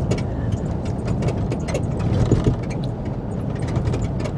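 Road noise inside the cab of a moving pickup truck: a steady low rumble with scattered light clicks and rattles.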